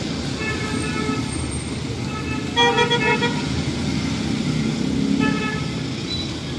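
Vehicle horns tooting in several short beeps, the loudest about two and a half seconds in, over steady traffic noise from vehicles passing on a wet street.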